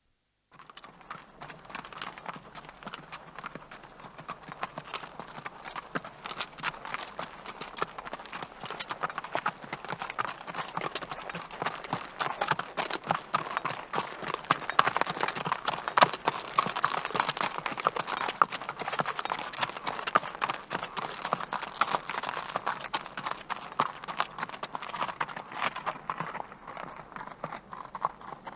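Horse hooves clip-clopping in a rapid, continuous run of hoofbeats. They grow louder toward the middle, then fade as if passing by.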